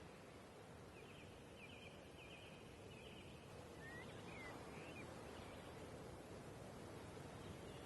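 Faint outdoor ambience with a few distant bird chirps: short rapid trills in the first few seconds, then two or three brief gliding calls around the middle.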